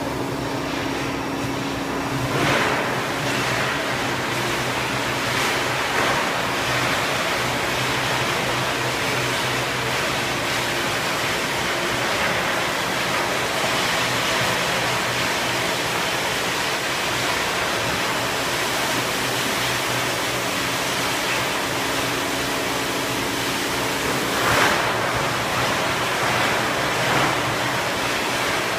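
Large injection molding machine for HDPE pipe fittings running: a steady hiss-like noise with a low machine hum, one tone of which drops out about two and a half seconds in, and a few brief louder surges.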